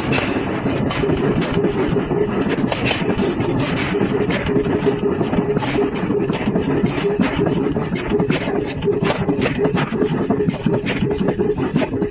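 Forging-shop machinery running steadily, a dense hum with many quick, irregular clicks and clanks over it.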